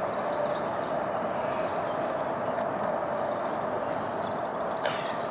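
A steady mechanical hum with a constant tone over a noisy rumble. A few faint high chirps come over it, and there is a single click near the end.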